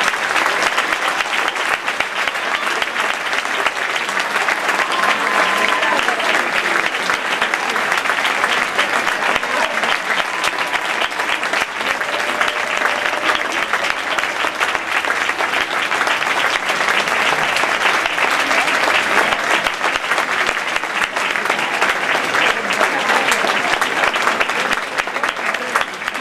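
Audience applauding, a dense steady clapping that holds at one level throughout.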